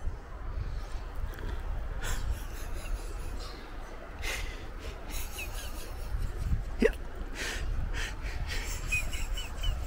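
Strong wind buffeting the microphone: a constant low rumble with gusty rustling surges. A few short high chirps come through around the middle and again near the end.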